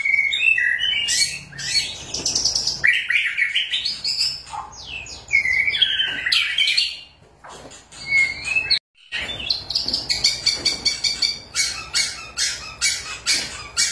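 White-rumped shama (murai batu) singing hard in the fast, heated 'gacor nembak' style: a loud, varied run of whistles, sliding notes and rapid chattering bursts. The song breaks off briefly about nine seconds in.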